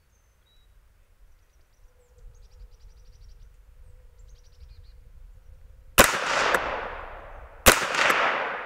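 Two rifle shots from a semi-automatic Savage A17 .17 HMR rifle, fired about a second and a half apart, each a sharp crack with a fainter crack about half a second later and a long echoing decay. The first shot just misses the target and the quick follow-up hits it.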